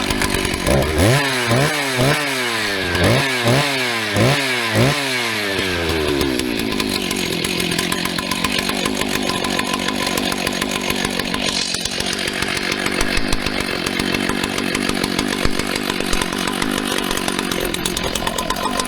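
Husqvarna 2100CD two-stroke chainsaw, just started, revved in about six quick blips over the first six seconds. It then settles into steady running. The saw is a rebuild fitted with a 395 carburettor, and it sounds sharp.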